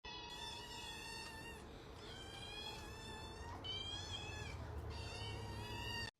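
Kitten mewing repeatedly: about five high, wavering cries, each under a second long.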